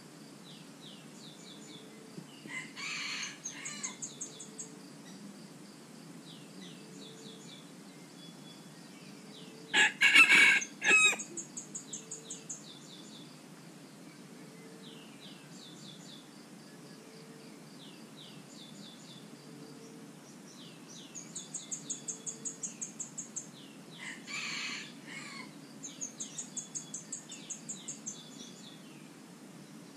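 Rooster crowing three times: a crow about three seconds in, the loudest about ten seconds in, and another near twenty-five seconds. Small birds chirp steadily throughout, with bursts of rapid high-pitched trills between the crows.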